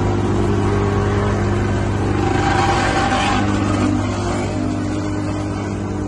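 A small ride-on double-drum asphalt roller's diesel engine runs steadily up close as it rolls across fresh blacktop, mixed with the engines of the paving machinery. There is a brief swell of louder, hissier noise a couple of seconds in.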